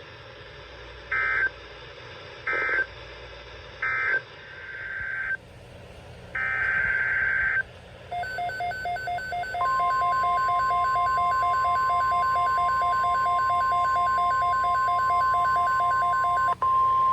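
Emergency Alert System data tones on NOAA Weather Radio. Three short warbling data bursts (an end-of-message code) are followed by two longer header bursts. About eight seconds in, a fast pulsing beep starts, and about a second and a half later the steady weather radio alarm tone joins it. The pulsing stops with a click near the end while the alarm tone holds on.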